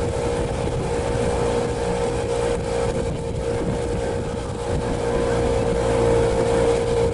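Motorboat engine running at a steady speed, a constant drone that grows slightly louder near the end.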